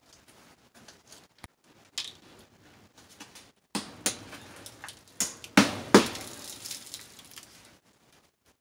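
Hammer blows and metallic clinks as expanded metal lath is fastened against a concrete wall, with rattling of the lath sheet between strikes; the two loudest blows come close together about two-thirds of the way through.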